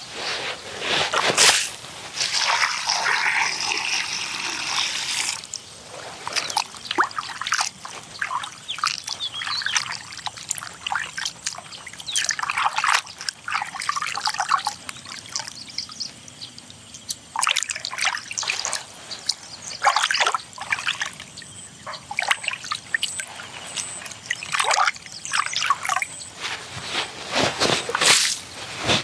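Water being handled by hand: a steady pour for a few seconds about two seconds in, then irregular trickling, dripping and splashing with small knocks.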